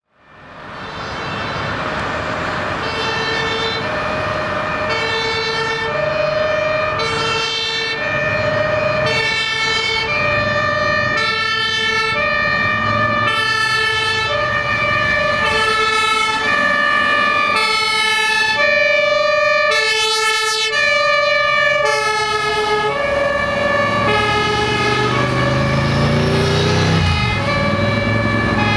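Fire truck's two-tone emergency horn (German Martinshorn) sounding, switching between a lower and a higher tone roughly every second, over the low rumble of truck engines and traffic. The sound fades in over the first second.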